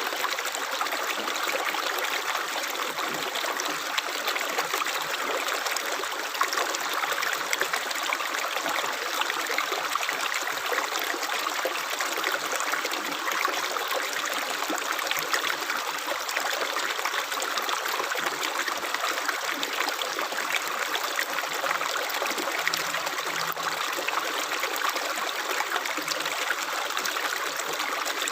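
Running water flowing steadily, a continuous rush of stream water.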